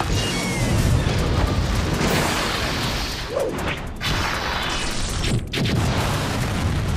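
Staged fight sound effects: a dense wash of whooshes and a string of blasts and impacts, with an explosion near the end.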